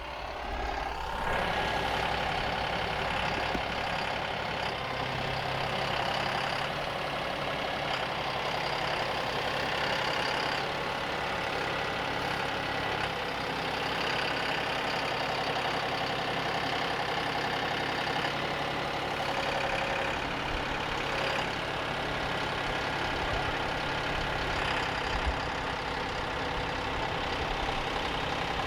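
John Deere tractor engine running steadily, its note shifting a few times as the tractor works moving hay bales.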